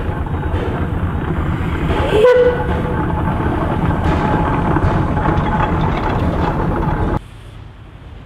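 Narrow-gauge steam train running, a dense steady rumble and clatter, with a brief high pitched tone about two seconds in. The sound drops away suddenly about seven seconds in, leaving a much quieter background.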